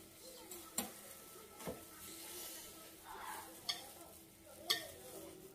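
Plastic-gloved hands pulling apart a whole stewed chicken: soft, crinkly rustling and wet tearing, with a few sharp clicks of tableware against the dishes.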